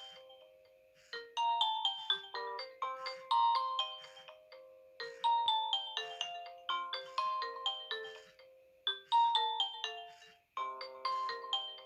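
Nokia N70 built-in ringtone playing from the phone: a chorded electronic melody of short, bright notes that start sharply and die away quickly. The same phrase repeats about every four seconds.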